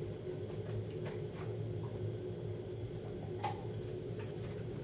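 A person drinking water from a cup: a few faint swallows and small ticks, with one sharper click about three and a half seconds in, over a steady low hum.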